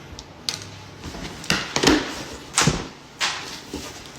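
A cardboard shipping box being opened and handled, with about five sharp knocks and rustles of cardboard and packing.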